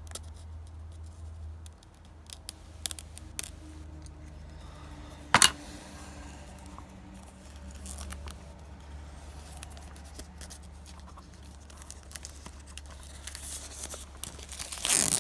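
Packaging of a Blu-ray set being cut and torn open, with scattered clicks and scrapes over a steady low hum. There is one sharp snap about five seconds in, and a burst of plastic rustling and tearing near the end.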